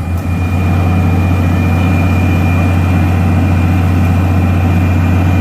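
Excavator's heavy diesel engine running steadily at idle, with a thin, steady high whine over it.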